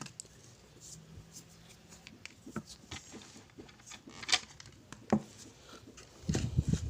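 Light clicks and knocks of nebulizer casing parts being handled and fitted together, a handful of separate taps with one sharper knock a little after four seconds in.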